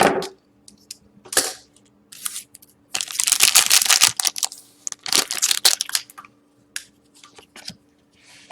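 A trading-card pack wrapper being torn open and crinkled, with the cards handled. There are a few short rustling bursts, a longer loud tear about three to four seconds in, and scattered light clicks near the end.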